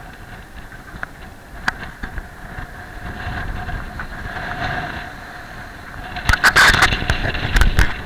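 Strong wind and rushing sea aboard a sailing yacht running downwind in about 25 knots, with wind buffeting the microphone. The noise is steady until about six seconds in, when a run of loud gusts or spray bursts hits the microphone for a second or two.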